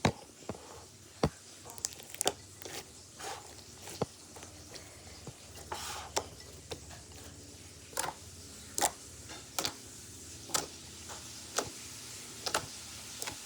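A sticky homemade squishy mixture being worked by hand, giving irregular sharp wet squelches and clicks, about one or two a second.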